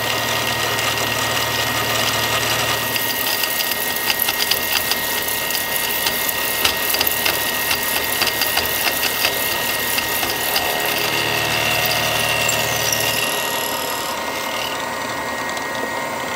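CNC knee mill milling aluminum 80/20 extrusion with a 2-flute 13/16-inch end mill: steady machine whine and cutting noise, with a fast irregular rattle of ticks through the middle stretch as the cutter works the counterbore.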